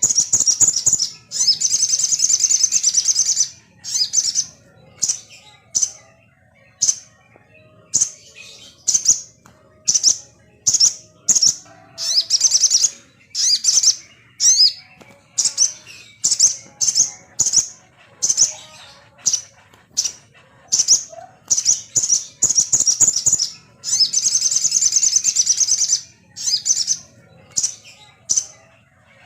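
Sogon songbird calling: a rapid series of short, loud, high chirps, about one or two a second, broken by two longer trilled runs, one near the start and one about three-quarters of the way through. This is lure song used to provoke kept sogons into agitated, chattering song.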